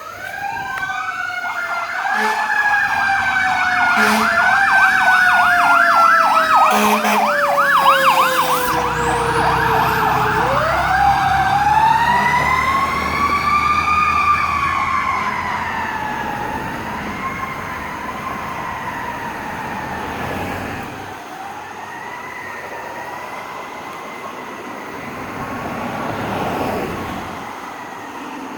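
Fire rescue truck's siren on wail, its pitch rising and falling slowly, with a rapid warble over it and a few short horn blasts in the first several seconds. It is loudest about eight seconds in as the truck goes by, then fades as it moves away.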